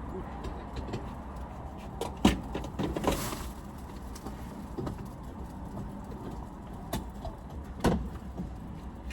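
Fuel nozzle and filler cap being handled at a gas pump after the tank is full. A few sharp clunks, the loudest about two seconds in and near the end, and a brief rush of hiss around three seconds in, over a steady low hum.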